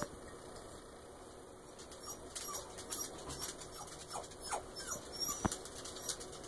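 Young pet rats lapping soy baby formula from a glass bowl: faint, quick wet clicks and ticks that grow busier from about two seconds in, with one sharper tap near the end.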